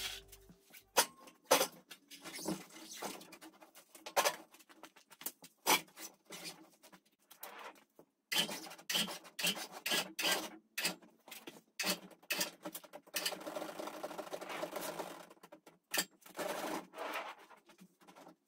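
Irregular knocks, clunks and scraping as car tyres are handled and wedged between an upturned fibreglass boat hull and its steel stand, with longer stretches of rubbing and scraping about eight seconds in and again near the end.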